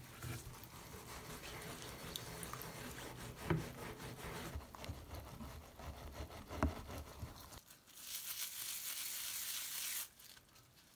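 A small rubber tyre being washed by hand in a plastic tub of soapy water: sloshing and squishing with two knocks, then, about eight seconds in, a sponge scrubbing the tyre with a steady rasping hiss that stops about two seconds later.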